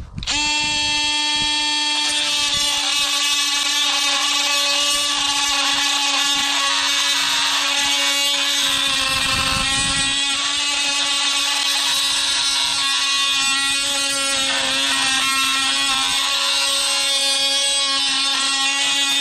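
DeWalt DCS356 brushless cordless oscillating multi-tool with a DeWalt blade cutting into a grade 8 bolt: a steady, high-pitched buzz that starts right at the beginning and stops suddenly at the end. The tool struggles on the hardened grade 8 steel, which is dulling the blade.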